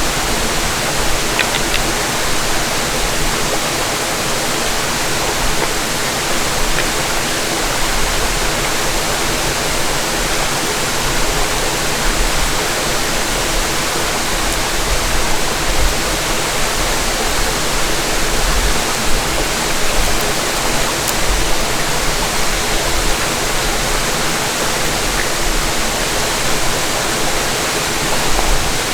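Small creek rushing close by, a loud steady hiss of flowing water.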